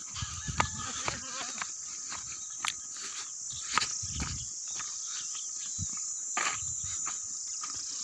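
Goats walking on a gravelly hillside path, hooves and steps clicking irregularly, with a short wavering bleat about a second in. A steady high insect buzz runs underneath.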